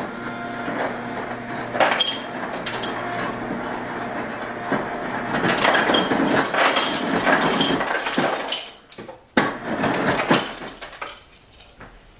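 Ice being dispensed into a cocktail shaker: a steady machine hum with rattling ice for about five seconds, then heavier clattering of ice for a few seconds, followed by a few separate knocks.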